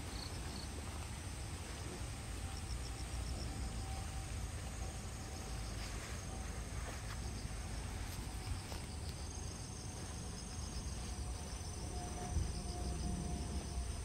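Insects trilling steadily: a continuous high-pitched trill with shorter pulsed trills over it a few seconds in and again midway, above a low rumble.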